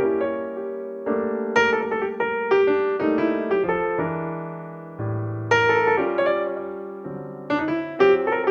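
Background piano music: chords and melody notes struck and left to ring, a new note or chord about every half second to a second.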